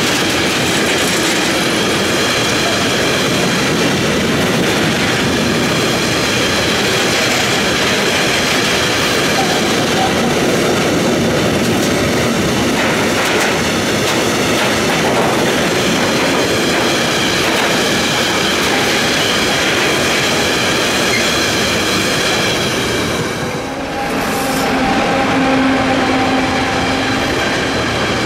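Freight train of tank wagons rolling past close by: a steady loud rumble and clatter of wheels on the rails, with a thin high squeal from the wheels. About 24 seconds in the sound dips briefly, then a second tank-wagon train passes with a steady low hum.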